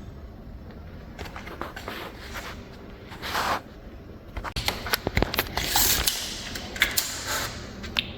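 Wooden cabinet drawer being handled on its slides: scattered knocks, clicks and a scrape, busiest in the second half, as the drawer is worked in and out without closing properly.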